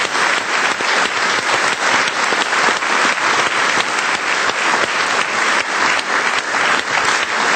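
Studio audience applauding: a dense, steady clatter of many hands clapping at once.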